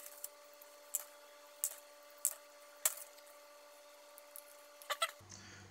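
Light, irregular clicks and taps of bent resistor leads and a fibreglass circuit board being handled as the resistors are pushed through the board's holes, about nine ticks with a quick pair near the end. A faint steady hum lies underneath.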